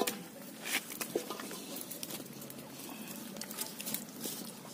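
Hands rubbing masala paste onto a whole raw chicken in an aluminium pot: soft, faint handling and patting sounds, with a sharp knock right at the start and a smaller one just under a second in.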